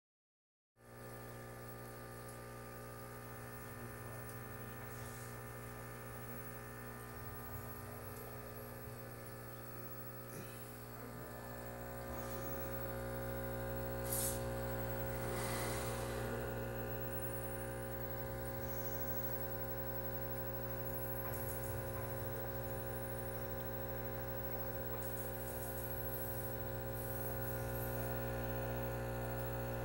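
Aquarium equipment humming steadily, an even electrical drone with several steady tones, with a brief knock about halfway through.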